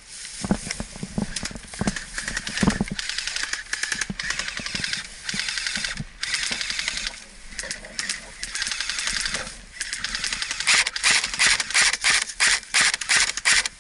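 Airsoft electric guns firing on full auto in several long, rapid bursts of clicking shots, the heaviest near the end, with a few single sharp knocks in the first seconds.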